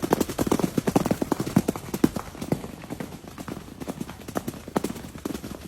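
Sound effect of horse hooves clip-clopping at a gallop: a quick, uneven run of hoofbeats, several a second, played for a white toy horse.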